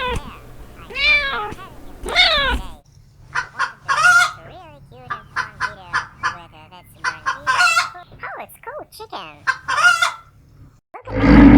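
A cat meowing twice. Then a flock of chickens making a rapid series of short clucks and calls for several seconds. Near the end a sudden loud, low animal call cuts in.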